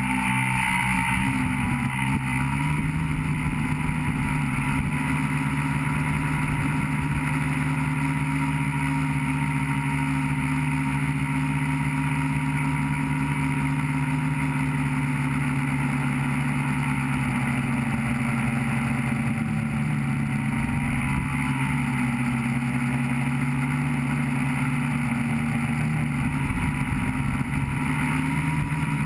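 Tricopter's three electric motors and propellers whirring steadily in flight, heard from the camera on board, with the tones wavering slightly in pitch as the throttle changes.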